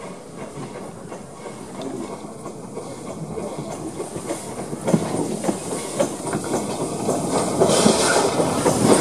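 Terrier 0-6-0 tank steam locomotive W8 Freshwater running slowly up alongside, growing steadily louder, with its wheels clicking over the rail joints and a hiss of steam getting strong in the last second or so as it draws level.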